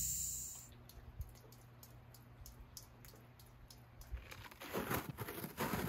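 A steady high hiss fades out at the start, then after a near-quiet stretch, faint irregular ticking and pattering of icy snow falling begins about four seconds in.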